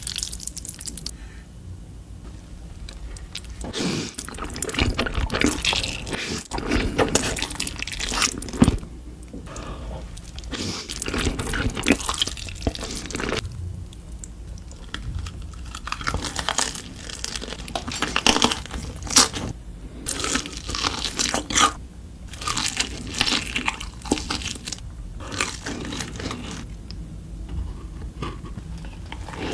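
Close-miked eating sounds: crunchy bites and chewing of crispy fried food, with irregular crackles throughout.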